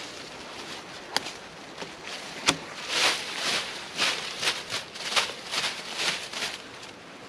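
Footsteps through woodland leaf litter, about two crunching steps a second, with a couple of sharp snaps of twigs earlier on.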